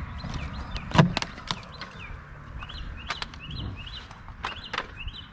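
A few sharp knocks and cracks of a wall being broken out by hand, the loudest about a second in, with a small bird chirping over and over in the background.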